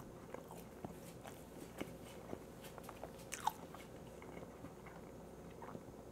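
A man chewing a mouthful of sauce-covered boneless honey barbecue chicken wing: faint wet mouth clicks and smacks, with one louder smack about three and a half seconds in.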